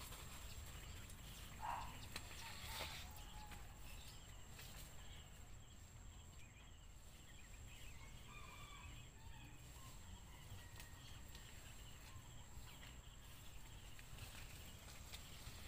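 Quiet garden ambience with faint bird calls, one brief louder call about a second and a half in and a click near the third second.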